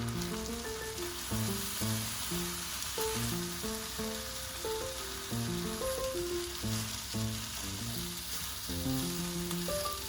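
Food frying in a pan, a steady sizzle.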